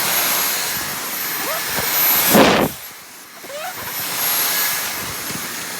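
Vacuum cleaner running, a steady rushing noise with a thin high motor whine, its level swelling and dipping. A short loud rush comes about halfway through.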